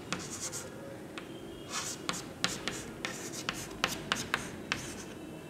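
Chalk writing on a chalkboard: a string of sharp taps as the chalk meets the board, mixed with short scratchy strokes as the letters are drawn.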